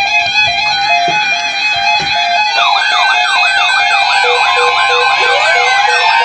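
Several NOAA weather alert radios sounding their alarms together: steady electronic tones and a regular beeping, joined about two and a half seconds in by a fast warbling siren-like sweep, with a falling whistle near the end.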